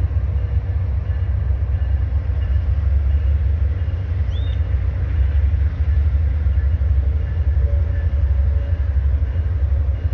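Low, steady rumble of an Amtrak passenger train's diesel locomotives idling, with a brief faint chirp about four seconds in.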